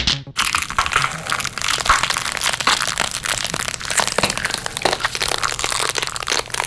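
Gore sound effect of crushing: a dense, irregular run of crunching and crackling that goes on for about six seconds.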